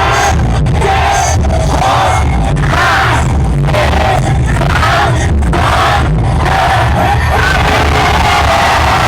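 Loud music with a large crowd yelling and cheering over it, with repeated shouted calls about once a second that give way to a steadier din near the end.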